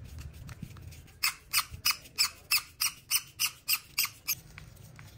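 Seized, rusted screw in a Makita cordless drill's housing squeaking as a flat-blade screwdriver works it, about ten short, sharp squeaks at roughly three a second between about one and four seconds in.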